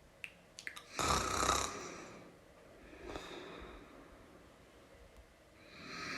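A person snoring: a few small clicks, then a loud snore about a second in lasting under a second, a softer breath around three seconds, and the next snore building near the end.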